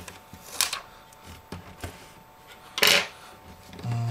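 Protective plastic film being peeled off a replacement iPhone screen: a few light handling clicks, then one loud, brief tearing rustle about three seconds in.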